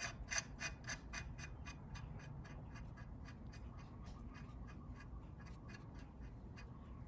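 Steel nut being spun by hand onto a steel bolt, its threads giving a faint, rapid ticking of about four or five clicks a second, louder in the first second and fading after.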